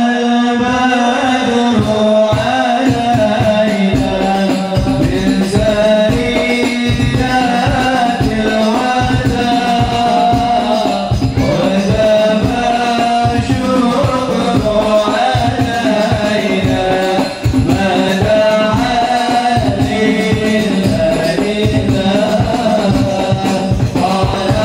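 Devotional sholawat song sung over a fast, steady beat of hand-played frame drums with jingles.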